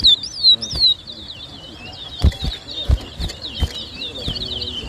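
Towa-towa (chestnut-bellied seed finch) singing in competition: loud, falling whistled notes in the first second, then a fast, quieter run of repeated whistles. A few sharp knocks come about two to four seconds in.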